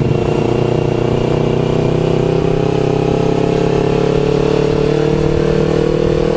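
Motorcycle engine running steadily as the bike is ridden, its pitch easing up slightly and then holding, heard through an action camera's built-in microphone.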